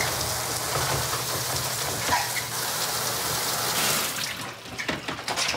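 Shower running: a steady hiss of water spray, dropping away about four and a half seconds in.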